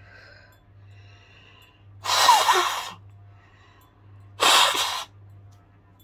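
A woman blowing her nose hard twice into a thin cloth handkerchief, the first blow with a brief squeaky honk.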